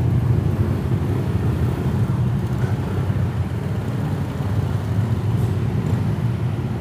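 Motorcycle engines running as a group of bikes rolls slowly along a ferry's enclosed vehicle deck: a steady low rumble.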